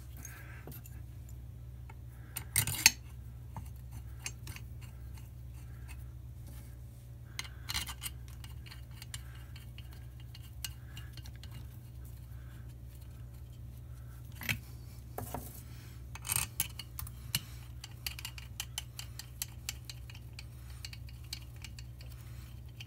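Metal parts of a brake lathe's disc feed gearbox knocking and clicking as the housing halves, shaft and bolts are handled and fitted together. The sharpest knock comes about 3 s in, with a cluster of small clicks in the later part, over a steady low hum.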